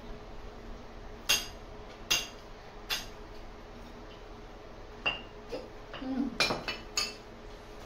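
Spoons clinking against ceramic bowls while eating: several short, sharp clinks with a brief bright ring, bunched together near the end.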